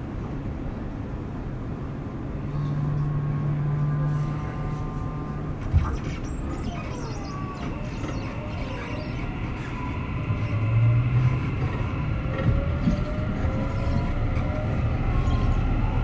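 Tokyu 6000 series electric train pulling away, heard from on board: a single knock about six seconds in, then the traction motor whine rising in several pitches as the train gathers speed, over the rumble of the wheels on the rails.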